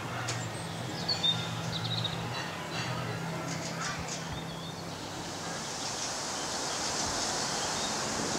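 Songbirds chirping and trilling in short calls over a low steady hum that fades out about five seconds in. In the last few seconds a hiss of wind in leafy trees grows louder.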